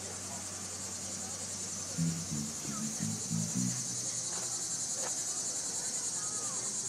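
Insects trilling steadily in a high, finely pulsing drone. A low hum stops about two seconds in, and a few short low tones follow between about two and four seconds.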